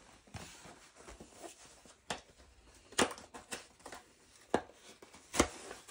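A diamond painting kit box being handled and opened by hand: soft rustling with about four sharp taps and knocks, spaced about a second apart in the second half.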